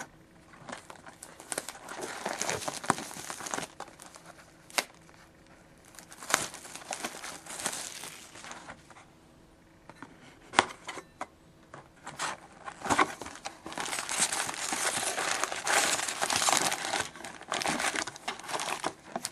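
Plastic wrapping and card packs crinkling and rustling as a sealed box of trading cards is unwrapped and emptied, with a few sharp clicks scattered through.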